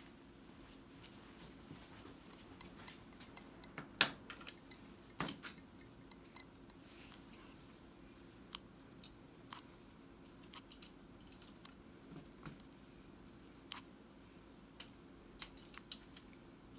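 Dental hand instruments clicking and tapping faintly and irregularly, with two louder clicks about four and five seconds in, over a low steady hum.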